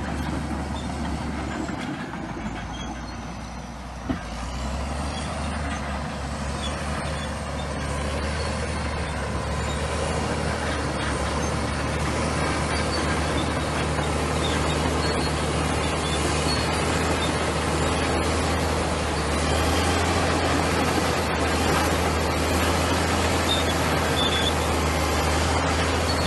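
Komatsu bulldozer's diesel engine running steadily, growing louder from about five seconds in as it works, with one short sharp knock just before.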